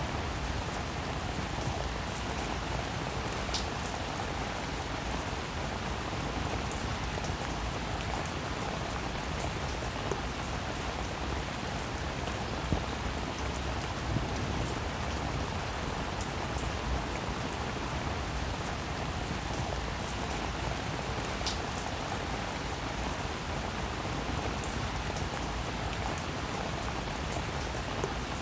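Steady rain falling on a surface: an even hiss with scattered drop ticks, and two sharper drop strikes, one about three and a half seconds in and one past the twenty-one second mark.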